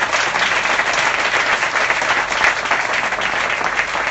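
Audience applauding, dense and steady.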